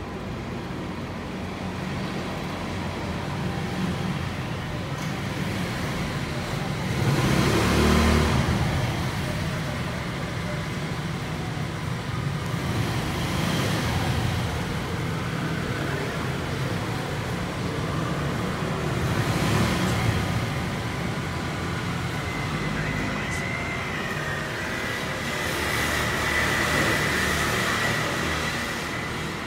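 Road traffic going by: vehicles pass one after another, each swelling and fading over a few seconds over a steady low rumble, the loudest about eight seconds in.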